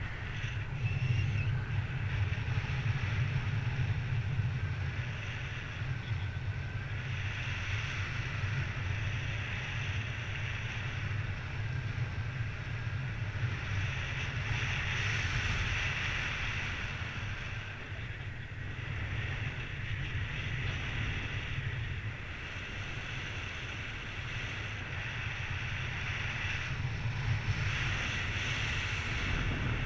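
Wind rushing past the camera microphone in paraglider flight: a steady low rumble of buffeting with a hiss above it that swells and eases every several seconds.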